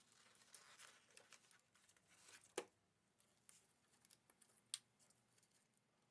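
Near silence with a few faint, sharp clicks and taps, like small parts and tools being handled. The two clearest clicks come about two and a half seconds in and near five seconds in.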